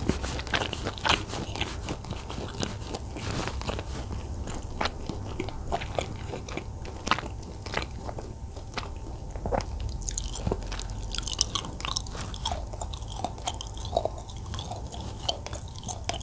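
A person biting and chewing air-fried, barbecue-sauced pork ribs close to the microphone, with irregular sharp, crunchy clicks.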